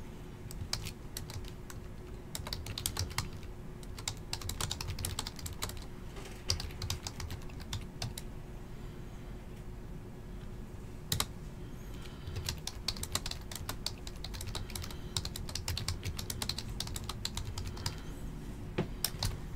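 Typing on a computer keyboard: irregular runs of quick key clicks with short pauses, over a faint steady hum.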